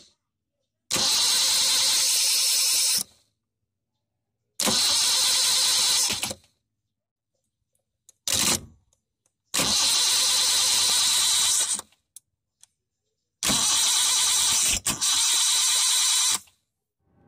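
Car starter motor cranking in five separate bursts, four of about two seconds and one brief one, with silence between them.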